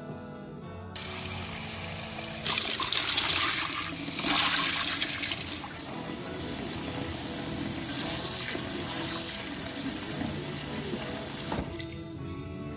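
Water running and splashing, as from a kitchen tap. It gets louder twice, a few seconds in, and cuts off suddenly near the end. Soft background music plays underneath.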